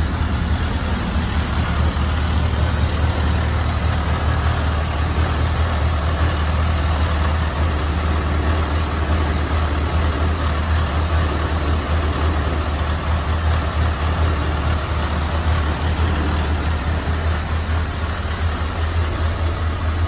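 1931 Ford Model A's four-cylinder flathead engine idling steadily, a low even rumble with no revving.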